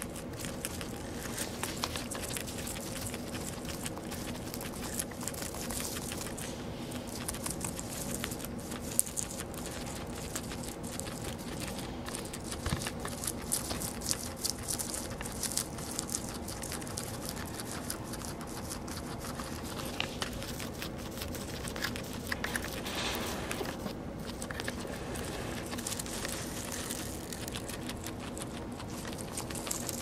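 Guinea pigs chewing hay close to the microphone: a dense run of small crisp crunches and rustles of dry hay strands, over a faint steady low hum.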